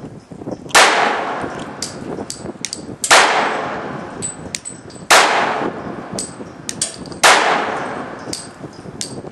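Glock 27 subcompact .40 S&W pistol fired four times, about two seconds apart, each shot sharp and loud with a long echoing decay. Fainter clicks fall between the shots.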